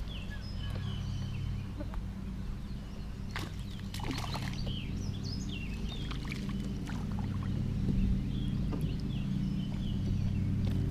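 Many short bird chirps over a steady low drone, with a few scattered clicks.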